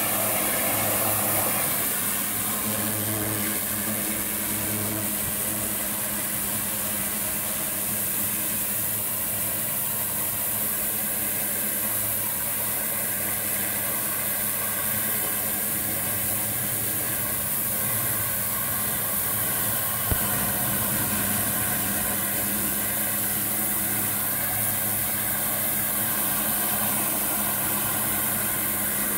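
High-pressure washer spraying water onto brickwork: a steady hiss of the jet over the even hum of the machine's pump motor. A single short click about two-thirds of the way through.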